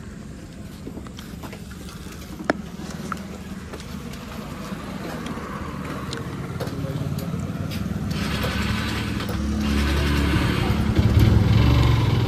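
Motorcycle engine idling, getting louder from about eight seconds in, with a single sharp click about two and a half seconds in.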